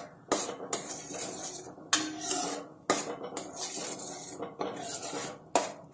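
A steel spoon scraping and knocking against a kadai while stirring tomato puree cooking in oil, in irregular strokes.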